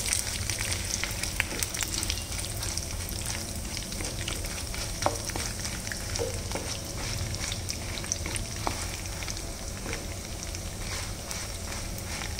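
Whole dried red chillies frying in hot oil in a pan, a steady sizzle with scattered small crackles, as the tempering for a tamarind chutney. A wooden spatula stirs them now and then, over a low steady hum.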